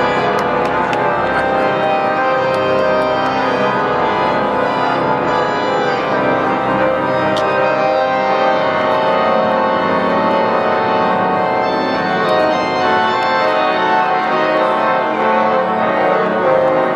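Organ playing loud, full sustained chords that move slowly from one harmony to the next.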